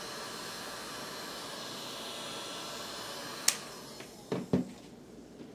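Handheld electric heat gun blowing steadily onto a phone's back glass to soften the adhesive. About three and a half seconds in there is a click, after which the blower winds down, and two short knocks follow near the end.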